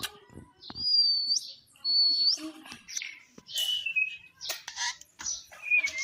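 Rose-ringed parakeet giving whistled calls: two high whistles in the first couple of seconds, each rising at its end, then a run of lower, shorter calls in the second half.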